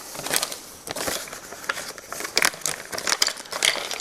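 Plastic parts bag crinkling as it is handled and emptied, with scattered small clicks of the parts inside.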